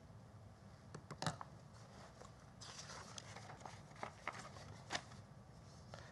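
Quiet room tone picked up by a lectern microphone, with a few soft clicks and rustles of paper notes being handled at the podium, the sharpest about a second in and again near the end.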